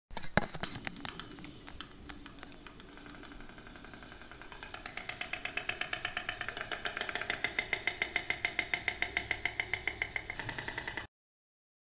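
White stork clattering its bill (crotoreo), the greeting display toward its mate. A few loose clacks open it, then from about the middle it becomes a fast, even, louder run of rapid clacks that cuts off suddenly near the end.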